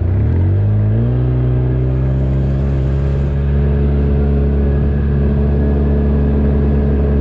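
Motor vehicle engine speeding up for about a second, then running at a steady speed while driving.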